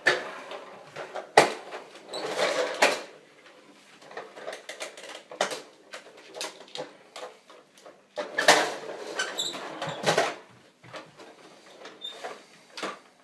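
Plastic toy vehicles being handled and moved on a wooden floor: scattered clicks and knocks, with two longer scraping or rolling noises.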